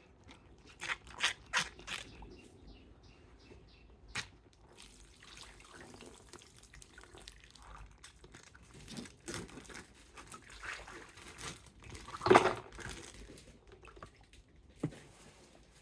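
Water dripping and trickling, with scattered small clicks and one louder sound about twelve seconds in.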